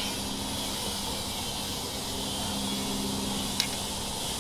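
Steady low mechanical hum with a faint hiss, and a single light click about three and a half seconds in.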